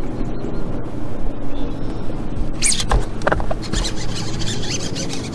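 Steady low hum of a bass boat's electric trolling motor, with a short, high squeak about three seconds in.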